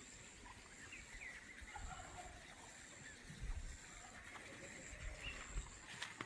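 Faint calls of farm fowl: a few short, scattered chirps and squawks.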